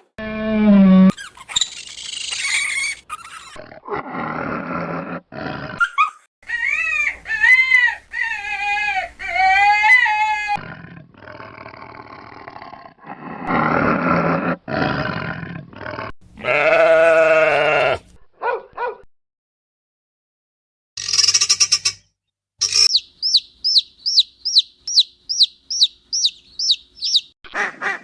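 A string of different farm animal calls cut one after another, each a separate pitched call, with a brief silence about two-thirds through. Near the end comes a run of quick, high, repeated calls, about three a second.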